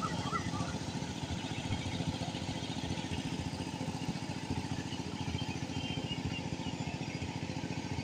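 A small engine running steadily, with a low, rapid, even pulse.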